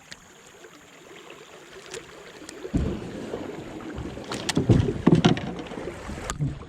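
Water rushing and splashing around a kayak moving on river current, with several low knocks and bumps in the second half.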